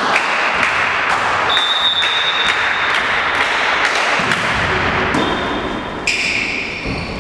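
Volleyball rally in a large, echoing sports hall: scattered thuds of the ball being played and short high squeaks over steady hall noise.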